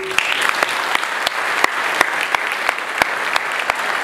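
Audience applauding, a dense clatter of many hands starting suddenly, with single sharp claps standing out above it.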